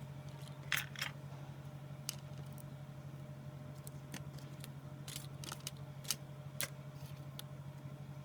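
Small sharp clicks and taps from tools and parts being handled during a phone repair, about ten of them at irregular intervals, over a steady low hum.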